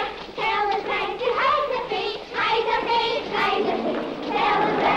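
A child's voice singing a simple song, holding and sliding between notes with brief breaths between phrases.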